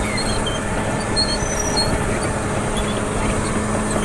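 Caterpillar D6R crawler bulldozer's diesel engine running steadily at light load while dozing sugarcane trash, with a low constant hum. Faint short high chirps come and go in the first two seconds.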